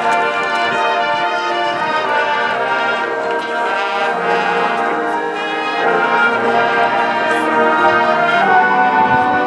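Marching band playing, its brass section holding long sustained chords; the band grows louder about six seconds in.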